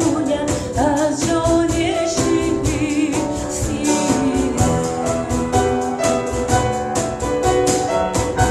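A woman singing with vibrato, accompanied by grand piano and percussion. The voice stops about halfway through, and piano and percussion play on.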